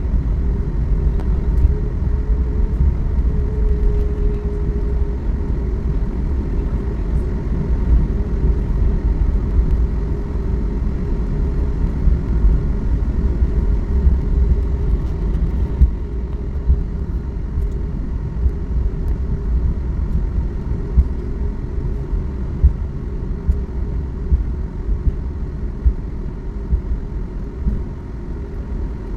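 Steady low rumble of a Boeing 737 MAX heard from inside the cabin as the jet rolls on the ground, with engine and wheel noise and a few brief knocks in the second half.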